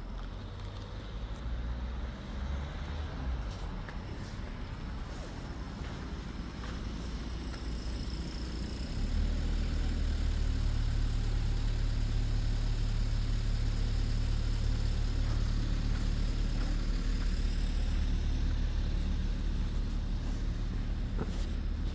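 Diesel multiple-unit train engine running at the crossing: a steady low rumble that gets louder about nine seconds in.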